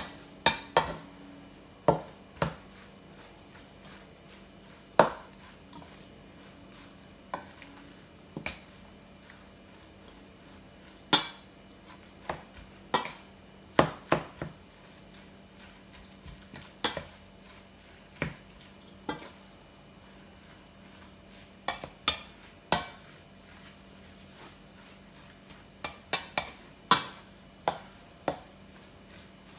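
A utensil clinking and scraping against a stainless steel mixing bowl, stirring a thick ground pork and carrot filling, with irregular sharp clinks that ring briefly.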